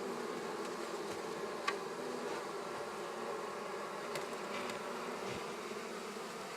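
A colony of honey bees buzzing steadily around an opened hive, the bees disturbed by the hive being worked. A single light click about 1.7 seconds in.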